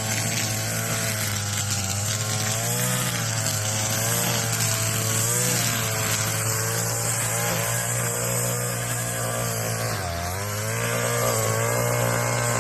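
Gas string trimmer (weed eater) engine running, its pitch wavering up and down and dipping briefly about ten seconds in.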